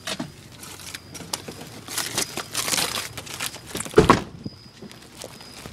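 Fast-food garbage crinkling and rustling as it is gathered up from a car's back seat, with one loud thump about four seconds in.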